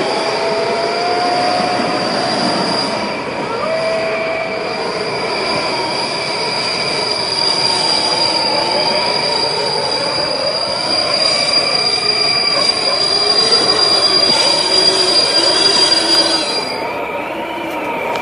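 Creepy monster sound effect built from train sounds: a long, steady high screech like train wheels squealing on rails, over lower wavering wails. The high screech cuts off near the end, leaving the lower wails.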